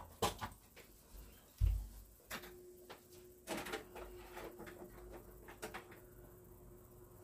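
Scattered knocks and clicks of things being handled and set down, with a heavy low thump about one and a half seconds in. An electric fan is then switched on, and its motor hums steadily from about two and a half seconds in.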